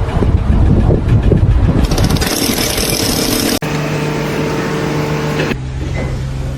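Motor engines running in short clips cut one after another: a rough low rumble, then from about three and a half seconds in a steady engine hum.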